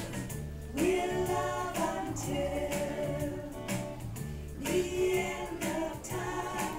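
Music with singing: voices holding long notes over a steady low accompaniment, as a wedding processional.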